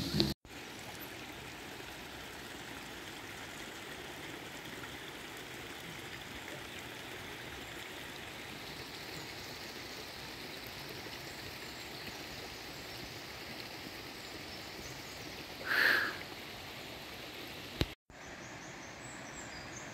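Steady rush of flowing water, even and unbroken, with one brief louder sound about sixteen seconds in. Near the end it cuts off abruptly into a quieter background with faint high chirps.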